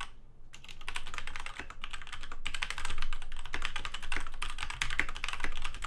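Fast continuous typing on a DMK02 mechanical keyboard with off-brand red linear switches, dense keystroke clicks after a brief pause about half a second in.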